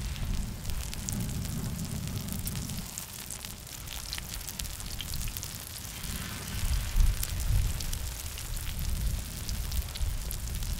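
Egg-battered jeon frying in oil on a large round cast-iron griddle, a steady crackling sizzle of many fine spatters, with a low rumble underneath that swells about seven seconds in.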